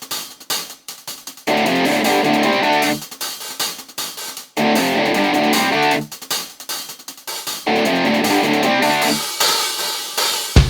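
Background music with a steady beat, loud stretches alternating with choppy, stuttering passages about every second and a half.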